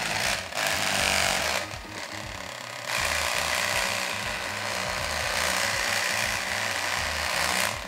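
Handheld mini massage gun running, its motor buzzing and the head hammering rapidly; it is not silent. The sound drops in level about two seconds in and comes back up about a second later.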